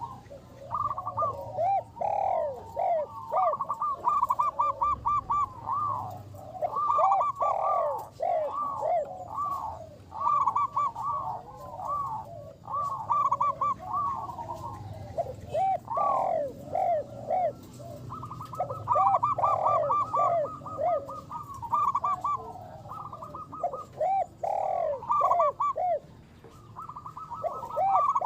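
Zebra doves (perkutut) cooing continuously in fast runs of short, ringing notes. Two birds' songs overlap at different pitches, with quick trilled passages now and then.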